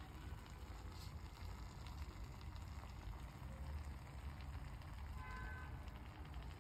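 Faint crackling hiss over a low rumble from a frying pan of meat, macaroni and vegetables simmering on the stove. A brief faint high tone sounds about five seconds in.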